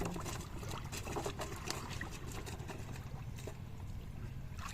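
Pond water splashing and trickling, with many small scattered splashes and drips as a fishing net is worked through the water.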